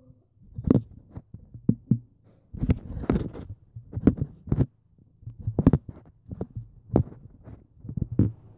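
Handling noise from a hand-held phone being gripped and moved: irregular knocks and bumps, about one or two a second.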